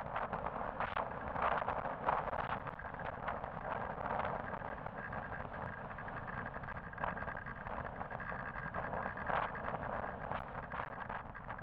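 Road traffic noise on a busy multi-lane road, heard from a moving rider or vehicle, with irregular gusts of wind rushing on the microphone.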